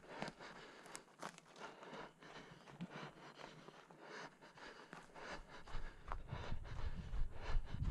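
Running footsteps crunching over pine needles, twigs and dry forest floor, irregular light crackles and thuds. About six seconds in, a low rumble on the head-mounted camera's microphone comes in and dominates.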